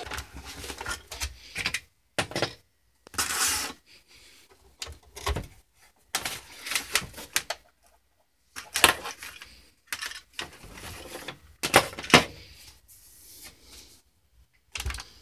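Irregular rustling and clattering of hands handling a Kodak Carousel 4200 slide projector and its coiled remote-control cord, in short bursts with a few clicks.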